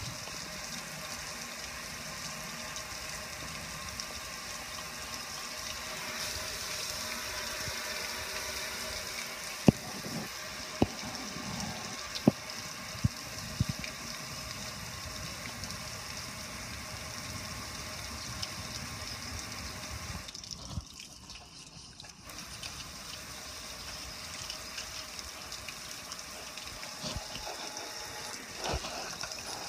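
A jet of water spraying onto a metal gas grill, splashing off the lid and pouring down the front in a steady hiss. The spray drops off briefly about two-thirds of the way through, and a few sharp clicks come between about ten and fourteen seconds in.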